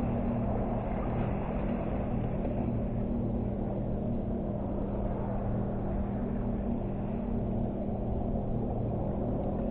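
A steady, even engine hum with no change in pitch or loudness.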